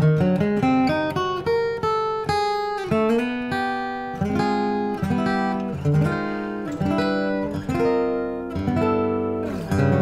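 Martin dreadnought acoustic guitar playing a picked instrumental passage, one note after another over bass notes, with a fuller chord struck just before the end.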